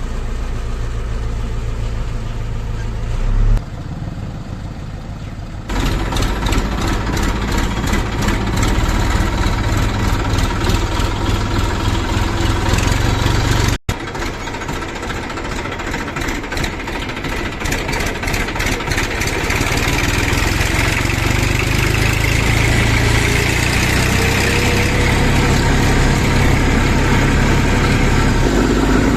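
Heavy diesel engine running steadily, with its sound changing abruptly a few times.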